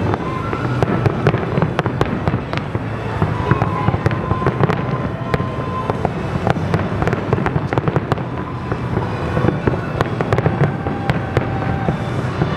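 Fireworks show shells bursting in quick succession: many sharp cracks and bangs over a continuous low rumble.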